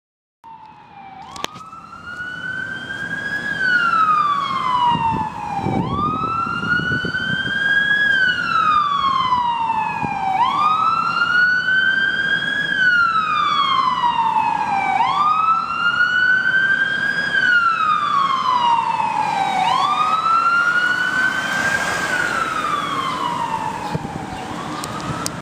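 Ambulance siren on the wail setting: a slow rise and fall in pitch that repeats about every four and a half seconds, five times over. It grows louder over the first few seconds, then holds steady.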